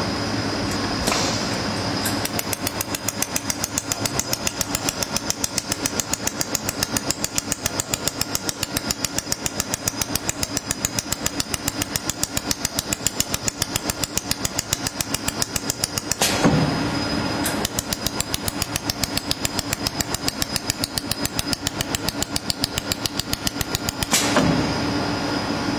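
Pulsed laser welding machine firing a fast, even train of snapping ticks in two long runs, each ending with a brief rush of noise, over a steady machine hum.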